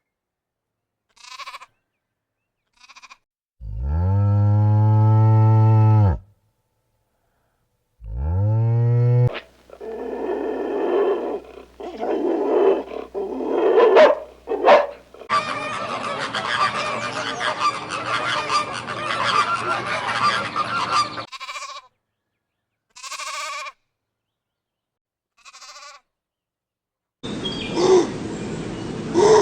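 Farm animals calling: several short bleats, and two long, low moos from a cow about four and eight seconds in. Between them come stretches of noisy farmyard background, each starting and stopping abruptly.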